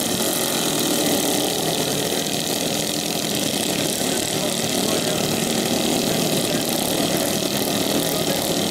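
Several small racing lawnmower engines running together, a steady unbroken engine drone.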